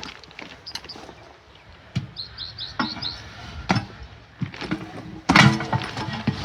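A small bird chirps a quick run of about seven short high notes, among scattered clicks and knocks of tire work, with a louder stretch of noise near the end.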